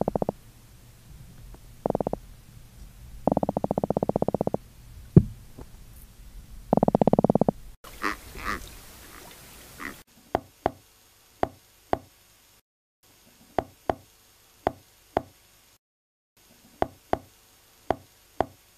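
Croaker drumming: several short trains of rapid pulses, the croaking it makes with its swim bladder. About ten seconds in, these give way to a long-snout seahorse clicking, a series of short sharp clicks, some coming in pairs.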